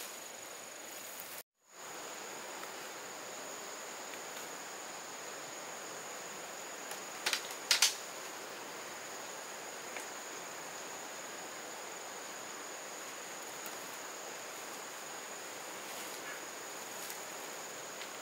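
Steady outdoor hiss with a thin, continuous high insect-like tone. Two sharp clicks come close together about halfway through.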